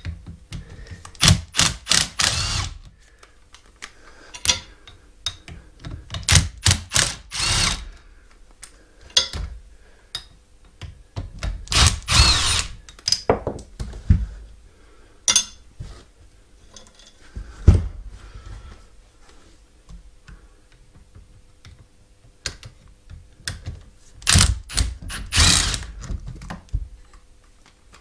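Metal clicking and knocking from a hand tool undoing a mobility scooter motor's mounting bolts. It comes in clusters of rapid clicks every few seconds, with single knocks and clinks in between.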